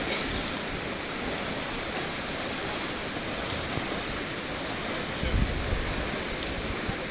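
Steady splashing and wash of pool water from swimmers doing backstroke in an indoor pool. A brief low rumble comes about five seconds in.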